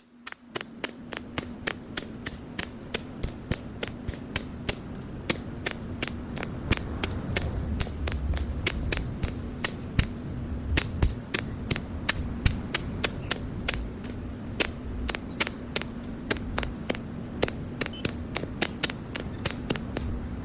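Argon TIG welding on stainless steel: a steady hum with sharp, even ticks about three times a second.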